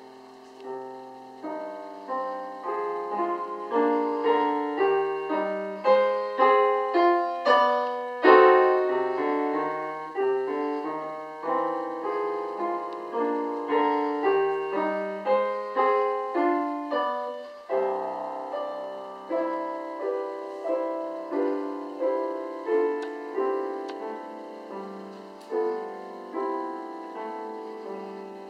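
Solo piano playing a classical piece: a steady run of struck notes and chords, each decaying, with a loud accented chord about a third of the way in and a softer passage in the second half.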